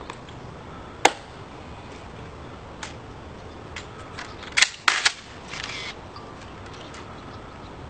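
Sharp clacks of a rifle being handled in a ceremonial inspection: one crisp crack about a second in, then a quick run of two or three loud clacks around the middle, with a few lighter clicks between.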